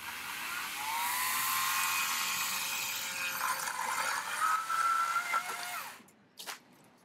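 Wild Badger 40V cordless electric chainsaw running at speed and cutting through a branch about 3 inches thick, its motor whine shifting in pitch as the chain loads and frees. It cuts off after about six seconds, followed by a short thump.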